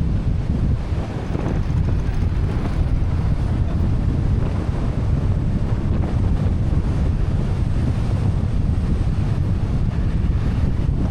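Steady low rumble of a Kia Sportage driving along a road: tyre and road noise mixed with wind buffeting the microphone.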